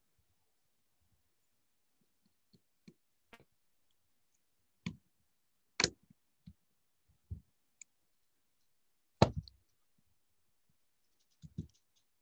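Irregular clicks and knocks from hands handling parts and tools while wiring an electrical training stand. About a dozen come over several seconds, the loudest two about six and nine seconds in.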